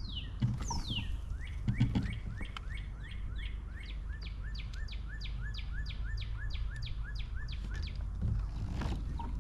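A songbird singing: two slow downslurred whistles, then a long run of quicker repeated downslurred notes, about three a second, which stops near the end.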